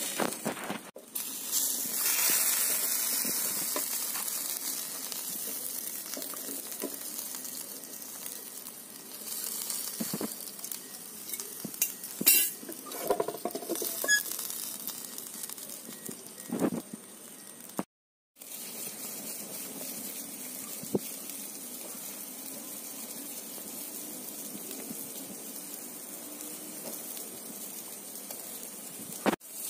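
Marinated chicken sizzling as it grills over hot charcoal, a steady hiss, with a few clinks and knocks of metal utensils and grill partway through.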